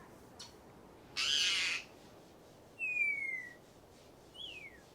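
Timneh parrots calling: a short harsh rasping call about a second in, then a clear whistle gliding down in pitch, and a shorter falling whistle near the end.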